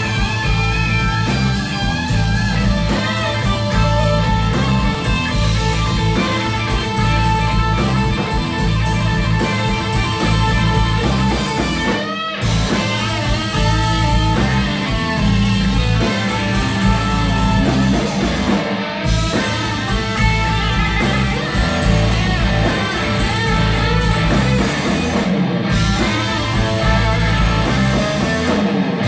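Live rock band playing loud, with electric guitar out front over bass and drums.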